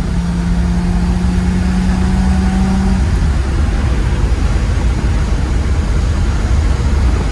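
Ferrari 330GT 2+2's 4.0-litre V12 engine running at speed under power, with a deep rumble of engine and road noise. Its steady note climbs slightly, then drops away about three seconds in, leaving the low rumble.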